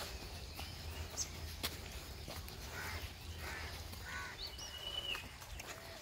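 Birds calling outdoors: three short, harsh calls in the middle, then a quick rising chirp and a held high whistled note that drops away at its end. A few sharp clicks come early on.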